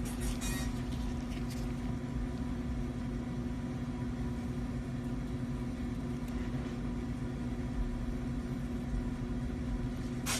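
A steady low hum holding one constant tone over a low rumble, with a few faint ticks in the first half second and one sharp click near the end.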